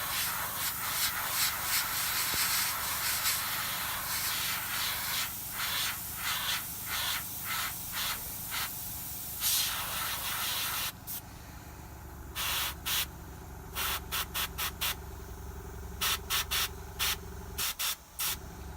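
Airbrush hissing: a steady stream of air with quick flickers for the first half, then from about 11 seconds in a run of short separate bursts as the trigger is pulsed, over a low steady hum.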